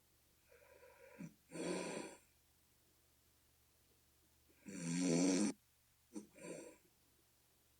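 A person snoring, a snore they liken to a bullfrog's call. Two loud snores about three seconds apart, the second the loudest, each with a softer sound beside it.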